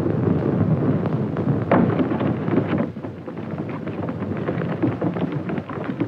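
Steady low rumble with scattered crackling, easing off a little about three seconds in.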